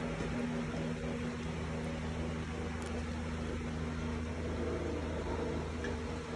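A steady mechanical hum with a few held low tones, from a running motor, that does not change over the whole stretch.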